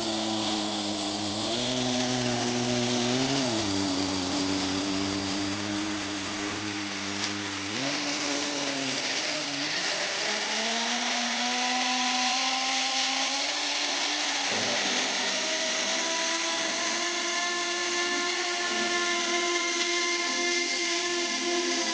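Kyosho GX-15 two-stroke glow engine of an RC snow tractor running, its pitch rising and falling with the throttle: it revs up a little about three seconds in, again near eight and ten seconds, then holds at a higher, steady speed.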